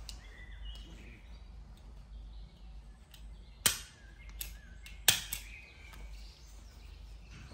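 Small handheld stapler snapping shut twice, about a second and a half apart, with a couple of lighter clicks near them, as it staples a disposable diaper closed.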